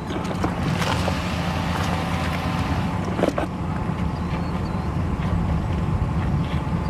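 Rain on a vehicle heard from inside the cabin, with scattered sharp ticks of drops on the body over a steady low rumble.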